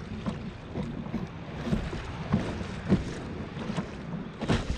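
Water splashing and sloshing around a sea kayak under way, in irregular bursts with a louder splash near the end, over wind buffeting the microphone.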